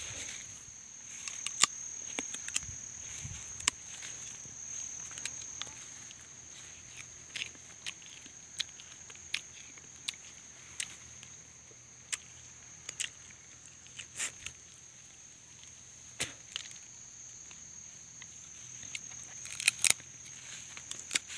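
Steady high-pitched insect drone, likely crickets, with irregular sharp snaps and crackles of footsteps through dry leaves and undergrowth.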